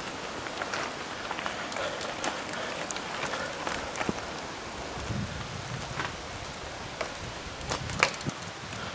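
Mountain bikes being ridden and pushed up a dirt forest climb: a noisy rustle scattered with clicks and knocks from tyres, bikes and feet. There is a low rumble about five seconds in and a sharp knock near eight seconds.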